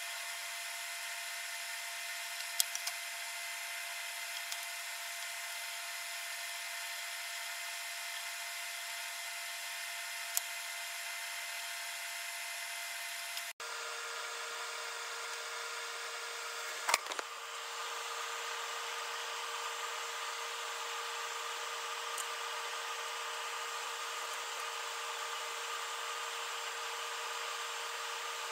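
Steady mechanical hum of a running machine, broken by a few sharp clicks of compound snips cutting wire screen mesh in the first seconds and a louder click past the middle. The hum drops out briefly about halfway and carries on in a slightly different tone.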